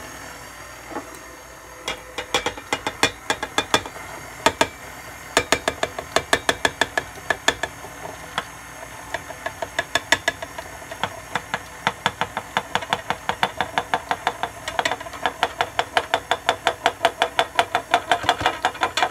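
KitchenAid stand mixer running with its flat paddle beater as flour is worked into cookie dough. A rhythmic knocking, about four knocks a second, starts about two seconds in.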